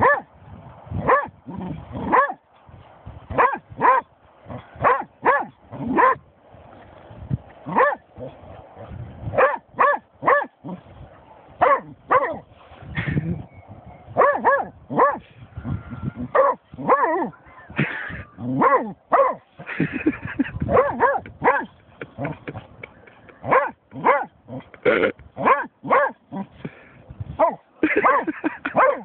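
German shorthaired pointer barking over and over, in uneven runs of short, sharp barks.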